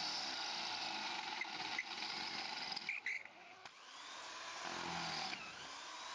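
An electric power tool running, with a few sharp clicks. About three seconds in it drops off briefly, then picks up again.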